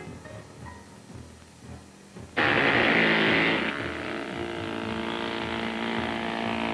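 Powered vehicle-rescue equipment starting up for cutting a car's roof: a sudden loud hissing rush, then a steady mechanical drone.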